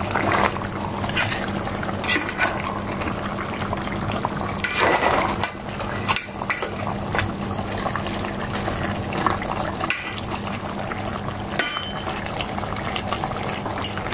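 Pork pieces simmering in soy and pineapple-juice braising sauce in an open pot, bubbling and popping steadily as the sauce boils down. A steady low hum runs underneath, and there is a louder spell of bubbling about five seconds in.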